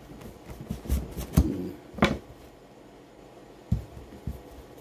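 Knife cutting through a whole guava on a paper-towel-covered table, with several short sharp knocks as the blade goes through, the loudest about two seconds in and two softer ones near the end.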